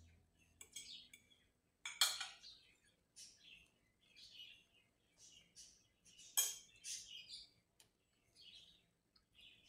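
A fork clinking and scraping on a plate while eating, with two sharper clinks about two seconds in and again past six seconds. Faint birds chirp between them.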